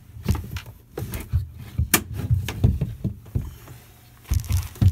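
Wooden trim rail being worked loose and pulled off a boat's cabin wall: a run of irregular wooden knocks and clicks, with a sharp crack about two seconds in and a quick cluster of knocks near the end.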